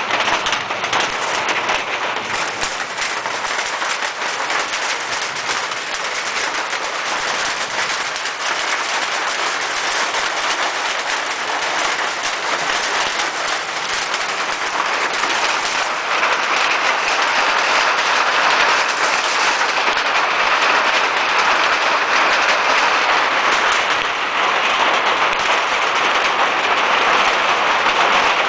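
Steady rain falling, a dense patter of drops that grows a little louder about halfway through.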